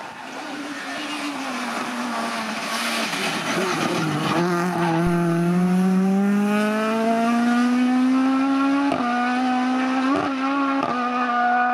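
Rally car at full throttle approaching and passing close by, its engine note climbing steadily in one long pull, then two quick gear changes near the end.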